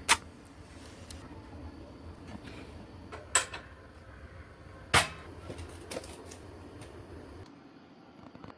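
Three sharp knocks, about a second and a half to three seconds apart, with a fainter one after them, over a low steady hum that stops shortly before the end.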